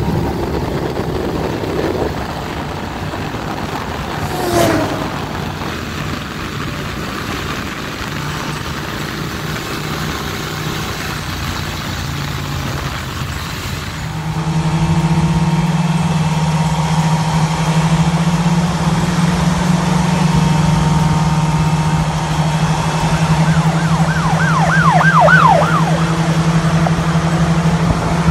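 Vehicle engine running with a steady low drone, which jumps louder about halfway through. Near the end a siren sounds briefly in a fast up-and-down wail.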